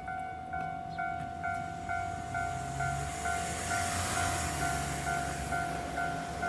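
Japanese level-crossing warning bell ringing about twice a second, while a train passes with rail noise swelling and fading about the middle.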